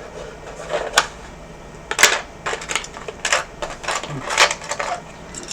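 Irregular sharp clicks and clatter of small hard parts being picked up, sorted and set down on a workbench, the loudest knocks about a second in and about two seconds in.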